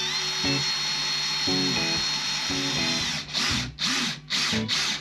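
Cordless drill driving screws to fasten a swivel caster to a wooden speaker cabinet: a steady whine for about three seconds, then four short bursts as the trigger is pulsed.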